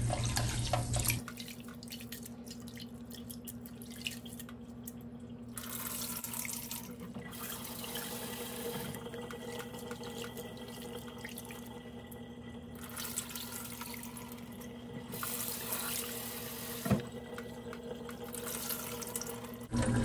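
A kitchen tap runs into a steel sink and stops about a second in. Then hands swish and rub soaking millet grains in water inside a stainless steel pot, with quiet sloshing and drips, and one light knock near the end.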